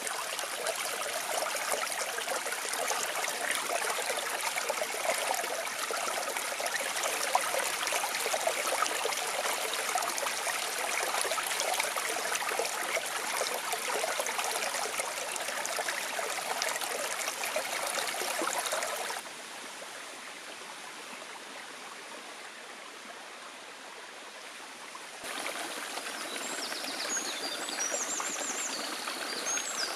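Shallow forest stream babbling and trickling over rocks and stones. The sound drops quieter for several seconds around two-thirds of the way through, then returns.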